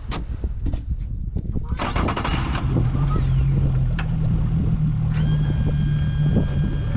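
A boat motor catching about two to three seconds in and running steadily, its pitch stepping up about a second later.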